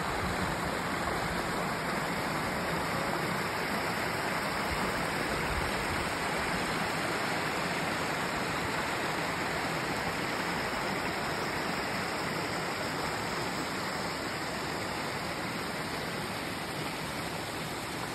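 Small mountain creek rushing steadily over rocks.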